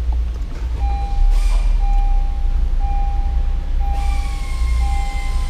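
Honda Civic warning chime beeping repeatedly, one steady electronic tone about once a second, starting about a second in, over a low steady rumble.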